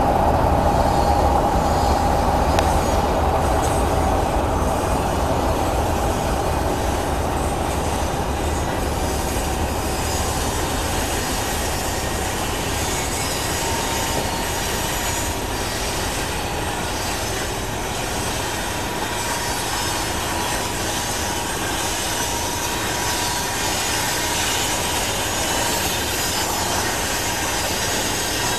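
Norfolk Southern manifest freight train braking to a stop: the brakes squeal with a high steady tone over the rumble of the rolling freight cars. Both are loudest at first and ease off over the first several seconds, and fainter squeals come and go after that.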